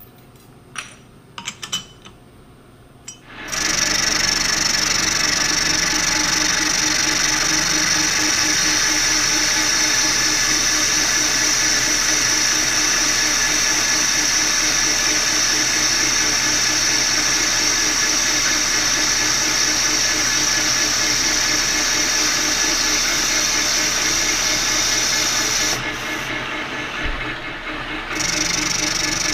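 A few clicks, then a metal lathe starts about three and a half seconds in and runs steadily with a pulsing hum while a turning tool cuts bronze bushing stock. The high cutting hiss drops away for a couple of seconds near the end, then returns.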